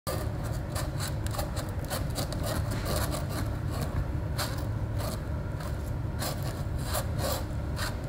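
Longboard truck squeaking and creaking in a rapid, irregular run of short strokes as the deck is rocked side to side under foot. The steel hanger of the Paris truck rubs against its polyurethane pivot cup, the usual cause of squeak in a new truck.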